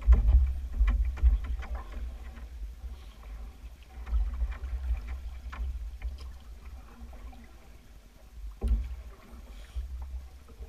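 Wooden canoe being paddled: paddle strokes in the water with drips and light clicks, and a sharp knock about nine seconds in, over a steady low rumble.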